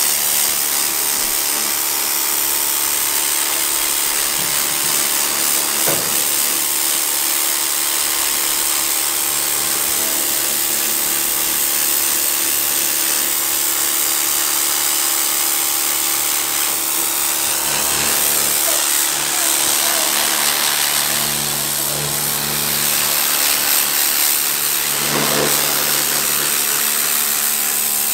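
Pressure washer running steadily, its water jet hissing against the hide of a scalded hog carcass to blast off the remaining hair and outer skin, over the constant hum of the washer's motor.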